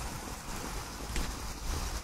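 Pool water churned and sloshing as a 1/6-scale RC crawler drives through it, with wind rumbling on the microphone.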